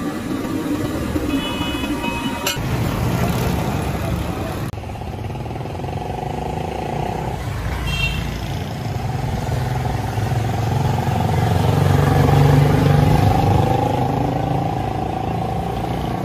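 Street traffic, with motorcycle engines running and passing close by; the rumble swells loudest about twelve seconds in. Two brief high beeps come in, near the start and about eight seconds in.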